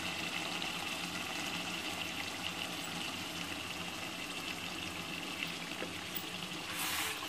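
Cabbage and mutton curry simmering in a pot, a steady bubbling sizzle with faint crackle, and a wooden spoon stirring it briefly near the end.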